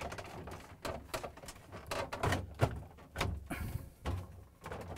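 Plastic knocks, clicks and scraping as a refrigerator water filter housing assembly is slid along its tab and pushed into place against the fridge's plastic interior, a few sharp knocks among softer handling noise.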